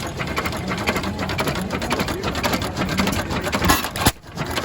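Antique stationary gas engine running with a fast, steady mechanical clatter, with two sharp louder knocks near the end.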